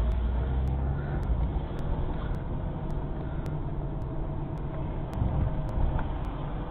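Low, steady rumble of a car driving slowly, engine and tyre noise heard from inside the cabin.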